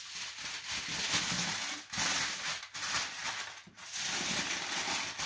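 Aluminium foil crinkling and rustling as it is folded and pressed around a fish fillet to make a foil parcel for the grill. It comes in several stretches with short pauses between them.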